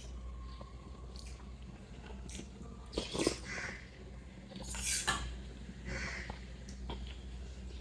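Close-miked eating sounds: a person biting and chewing sel roti, with a few short clicks of a plate or cutlery.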